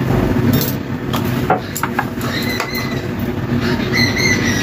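A few light knocks and clicks as a plastic oil bottle is handled at an aluminium wok on a clay stove. Near the end, cooking oil is poured into the empty wok, over a steady low hum and a few high chirps.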